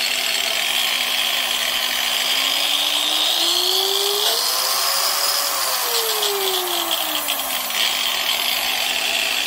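Makita 9566CV variable-speed angle grinder running with no load. Its motor whine climbs in pitch over a few seconds as the speed is turned up, peaks near the middle, then falls back to the low starting speed.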